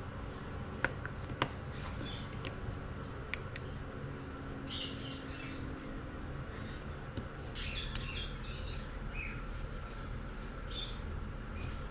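Small birds chirping on and off in the background, with two sharp clicks about a second in.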